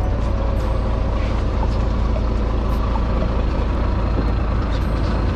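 Fishing boat's engine running, a steady low rumble, with a few faint knocks.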